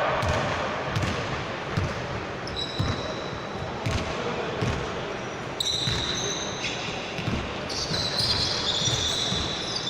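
Basketball dribbled on an indoor court, bouncing about one and a half to two times a second, with background voices and high squeaky tones over the second half.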